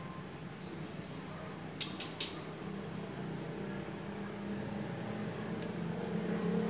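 Two or three sharp little metal clicks about two seconds in as tiny dental handpiece parts are handled and fitted, over a low steady hum that grows louder toward the end.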